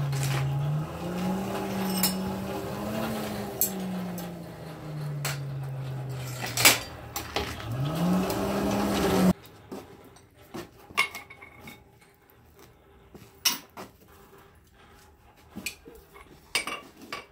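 Hand-cranked forge blower whining, its pitch rising and falling as the crank speeds up and slows, with a few metal clinks. About nine seconds in the sound cuts to scattered hammer blows on a glowing steel bar on the anvil.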